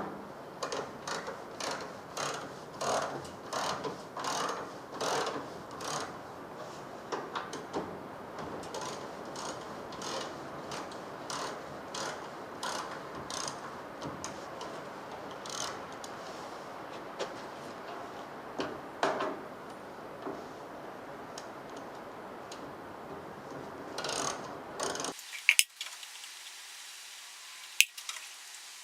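Socket ratchet clicking in quick runs as the generator's front-panel bolts are wound out. After about 25 seconds the ratcheting stops and only a few sharp clicks follow.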